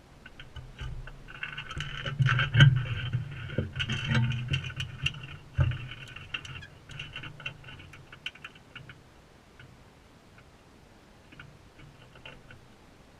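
Crimson rosellas feeding right at the camera: rapid ticks, taps and scratches of beaks and claws working at seed. Busiest for the first six or seven seconds, then thinning to scattered ticks.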